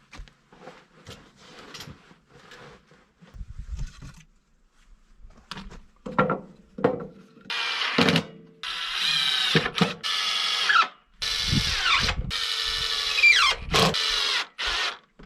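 Light knocks of wood being handled, then a cordless drill driving screws into scrap wood in several runs of one to two seconds each, the whine often sinking in pitch near the end of a run.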